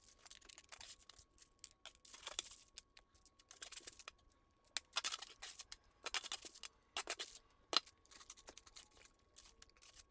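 Spatula scraping and pushing a pile of cheesy nachos off a foil-lined baking sheet: a series of irregular scrapes and foil crinkles, with short gaps between strokes.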